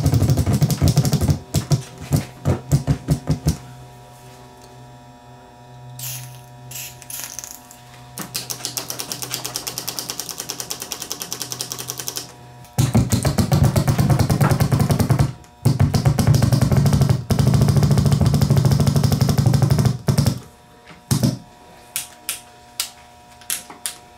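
DeoxIT contact cleaner sprayed in short hisses from an aerosol can with a one-shot nozzle into the SimuSync switches of a TEAC A-3340 reel-to-reel, with the switches clicking and rattling as they are worked back and forth to spread the cleaner. A fast, even run of ticks comes in the middle.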